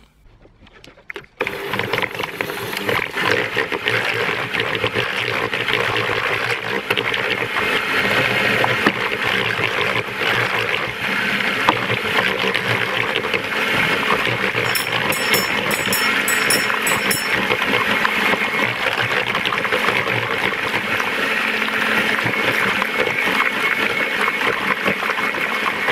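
Bosch electric hand mixer running steadily, its beaters whisking thick cream cheese and egg yolk batter in a plastic bowl. It starts about a second and a half in.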